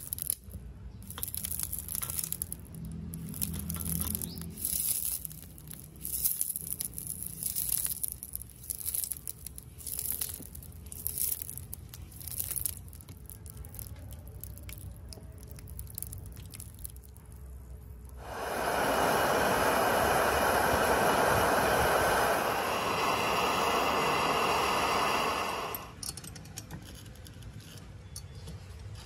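Liquid poured over a hot, smoking rusty pulley hub, sizzling and crackling. About eighteen seconds in, a loud steady hiss starts and cuts off suddenly some seven seconds later.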